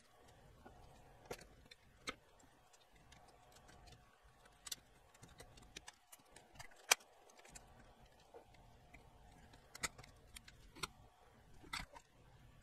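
Light clicks and taps of the circuit boards and plastic chassis of a Sony ICF-SW7600G radio being handled and fitted together: about seven sharp clicks, scattered irregularly, the loudest about seven seconds in.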